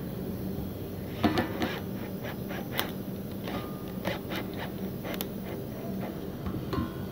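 Hand screwdriver turning a screw through a metal leg's foot plate into a wooden tabletop: a run of irregular clicks, about three or four a second, for about four seconds, with a few more near the end.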